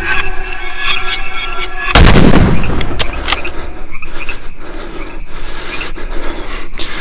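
Horror sound effects: a loud boom-like hit about two seconds in, followed by frightened, panting breaths.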